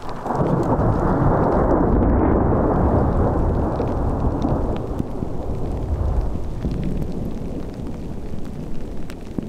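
Thunder breaking out suddenly and rolling on for several seconds, loudest in the first few and slowly fading. Light ticks of pea-sized hail are heard throughout.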